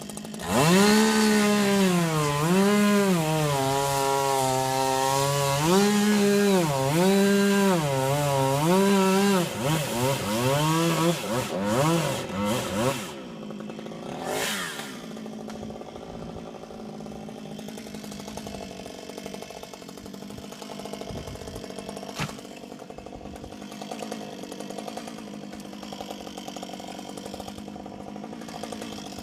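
Chainsaw engine running at high revs, its pitch dipping and rising again every second or so, for about thirteen seconds, then dropping back to a quieter, steady idle.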